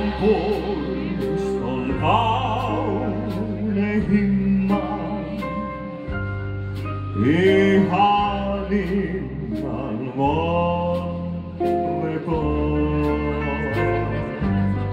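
A male vocalist singing a slow melody with vibrato through a microphone, backed by a live band: sustained bass notes changing every couple of seconds and light, evenly spaced cymbal ticks.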